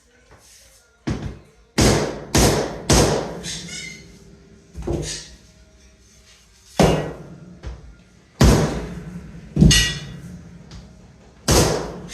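About nine irregular knocks: a mallet tapping luxury vinyl planks into place, some blows coming in quick runs of two or three.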